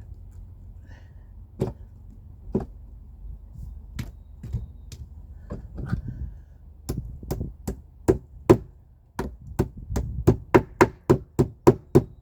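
Repeated hammer blows on nails in a wooden board, driving the old nails out. A few scattered knocks at first, then a quick, steady run of strikes from about halfway through, about four a second by the end.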